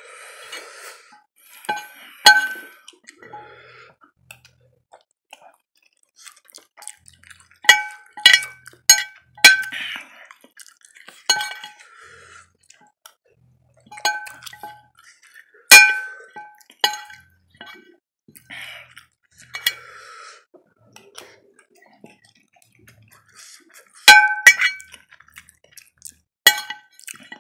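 Metal fork clinking and scraping against a ceramic plate while picking up leftover noodles: sharp ringing clinks come at irregular moments, several in quick succession about eight seconds in and again near the end.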